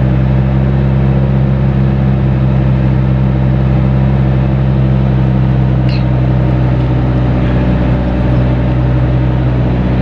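Car engine and tyre noise heard from inside the cabin while cruising at a steady speed: a steady low hum over road rumble. A brief high chirp about six seconds in.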